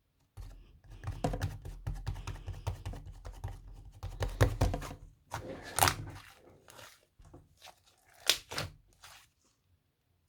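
A spoon or whisk working dalgona coffee mixture in a bowl: quick clicking and scraping strokes, then a few separate knocks before it stops.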